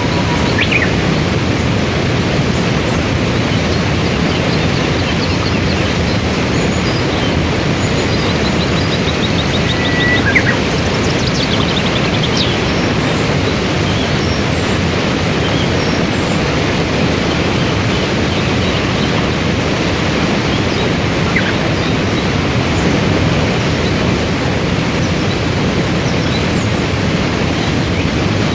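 Waterfall and white-water rapids rushing in a steady, continuous roar of water. A few faint bird chirps sound over it, including a short trill about eight seconds in.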